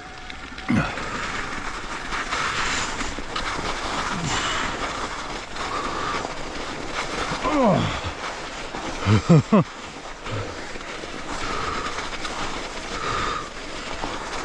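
Mountain bike rolling over a snowy gravel trail: a steady crunch and rattle of tyres and frame. About halfway through come a few short grunts from the rider, falling in pitch, the loudest sounds here.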